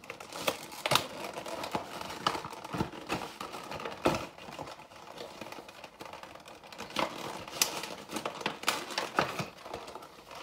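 Cardboard and plastic packaging of a Pokémon trading card collection box being handled: irregular rustling and crinkling with sharp clicks and taps, several louder knocks among them, as stuck contents are worked out of the box.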